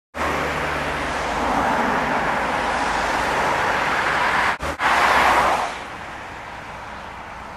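Steady rushing road noise of traffic on a nearby road, tyres and engine. It breaks off briefly about four and a half seconds in, then drops to a lower, even hiss near six seconds.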